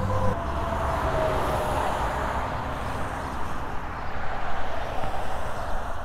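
Steady rush of passing road traffic, with a faint engine note in the first second or two.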